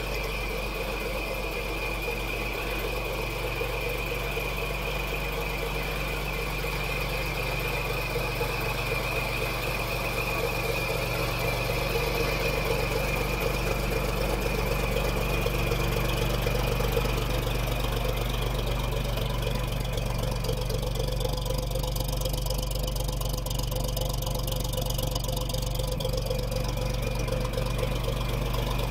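Waukesha engine of an old International fire truck idling steadily, with a constant high-pitched whine over the engine note.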